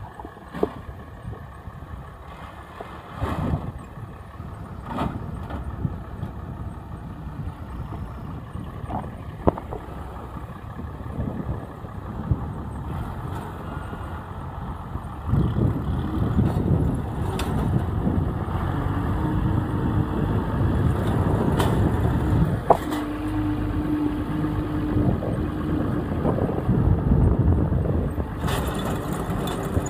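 International farm tractor engine running as it pulls a bale wagon picking up square hay bales, getting louder about halfway through, with scattered knocks.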